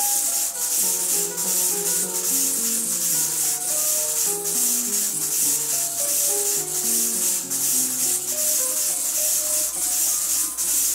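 Background music: a melody of short stepping notes over a steady shaker rhythm.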